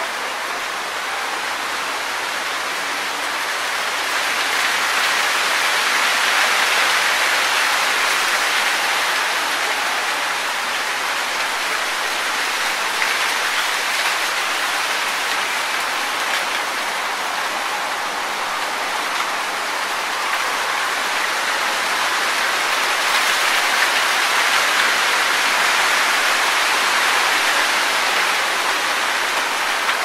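Wind rustling through tree leaves: a steady leafy hiss that swells with gusts, once a few seconds in and again in the last few seconds.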